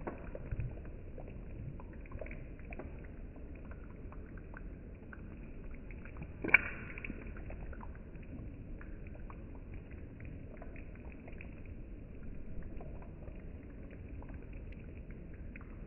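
Thick fish curry gravy simmering in an open pan: faint bubbling with small scattered pops over a low steady hiss, and one sharper click about six and a half seconds in.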